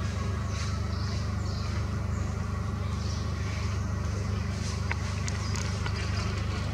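A steady low hum under a faint hiss, with a couple of light clicks about five seconds in.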